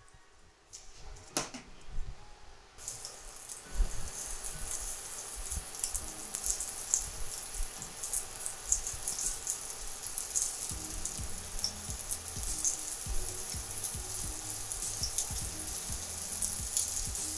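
Flour-dusted scallops searing in hot olive oil in a stainless-steel skillet: a steady sizzle with small crackling pops, starting about three seconds in.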